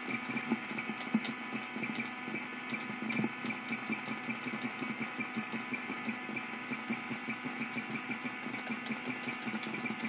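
Tube amplifier inside a computer case putting out the PC's electrical interference: a steady buzz made of several held tones, overlaid with irregular crackling clicks that follow what the computer is doing.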